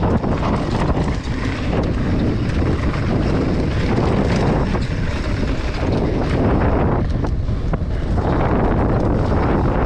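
Heavy wind buffeting the microphone, a steady rumbling roar, with a few faint clicks and rattles through it.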